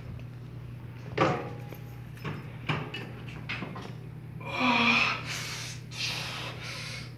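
Nautilus weight-stack machine clanking once with a short metallic ring, then a few lighter clicks as the cables and plates move. Partway through, a man's strained grunt falling in pitch, then several hard exhaled breaths as he works through the rep, over a steady low hum.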